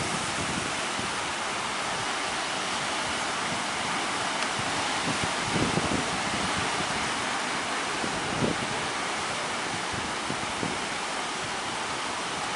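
Steady roar of surf breaking, with wind buffeting the microphone in a few short low thumps.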